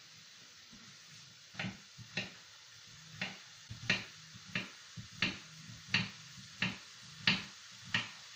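Kitchen knife slicing a zucchini into strips on a cutting board: a steady run of knocks, about three every two seconds, starting about a second and a half in.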